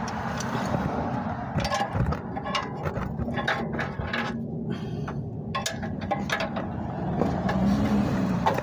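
Large screwdriver being levered against a 2016 Dodge Journey's front lower control arm, with irregular metallic clicks, knocks and scrapes as it pushes the arm out of its rubber bushing.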